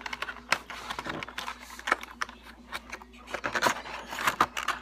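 A cardboard gift box with a clear plastic window being handled and opened by hand: irregular crinkling, crackling and small clicks of plastic and cardboard.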